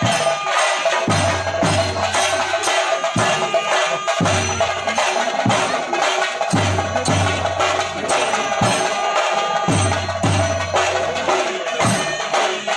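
Theyyam percussion ensemble: chenda drums beaten with sticks in a fast, dense rhythm, with deep drum strokes about once a second and the shimmer of elathalam hand cymbals over them.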